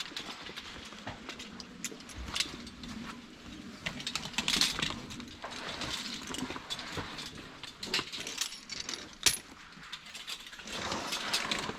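Metal climbing hardware clinking and jangling as rope gear is handled, with scattered knocks and rustling. There is a sharp clink about nine seconds in.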